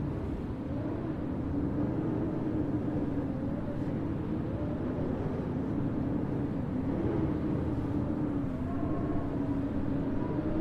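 Steady howling wind over a low rumble, its pitch wavering slowly up and down.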